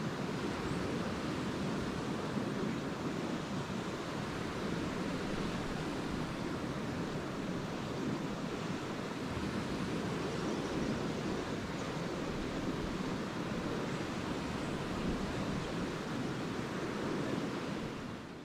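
Small lake waves washing steadily onto a sandy beach on Lake Erie, an even surf wash that fades out near the end.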